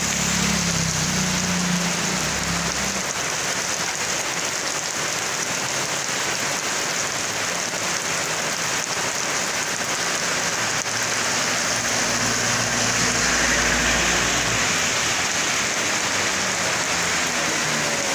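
Steady rain pouring onto a wet asphalt road. A motorcycle engine passes at the start, and a vehicle drives by on the wet road about two thirds of the way through.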